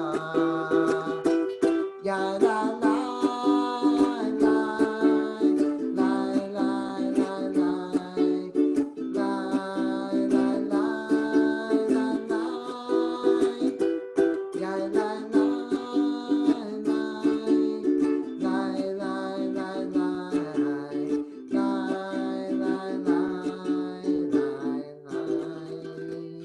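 Acoustic stringed instrument, ukulele or guitar, strummed in a steady rhythm through a chord progression, with the last chord dying away near the end.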